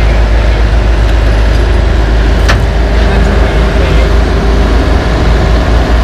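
The heavy diesel engines of a LeeBoy 8515B asphalt paver and a dump truck run steadily at close range, with a low, continuous rumble. There is one sharp click about two and a half seconds in.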